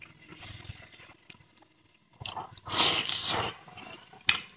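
Close-up eating of spicy noodle soup: soft chewing, then a loud slurp of noodles and broth lasting about a second, starting a little after two seconds in. A few sharp utensil clicks against the pot come near the end.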